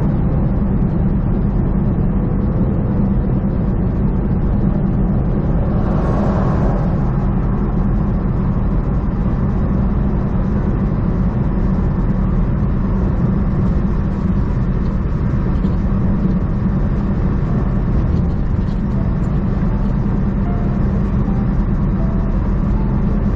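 Semi-truck engine drone and road noise heard from inside the cab while driving at steady speed, with a brief swell of rushing noise about six seconds in.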